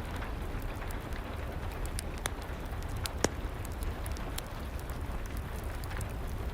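Fireplace crackling over steady rain: an even rushing hiss and low rumble with scattered sharp pops and ticks, one louder pop about three seconds in.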